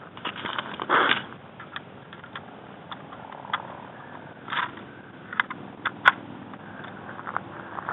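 Sharp metallic clicks and knocks from a bolt-action Mosin-Nagant rifle being handled close by, spaced irregularly, with the loudest click about six seconds in. A short rustle of handling comes about a second in.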